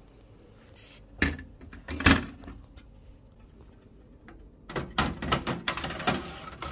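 The sheet-metal controller board cage of a Xerox WorkCenter 7830 copier being pushed shut into the machine: two knocks between one and two seconds in, then a run of metal clicks and rattles near the end.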